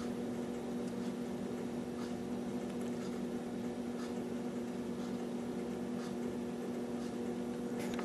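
Steady low electrical hum with a faint hiss behind it: room tone.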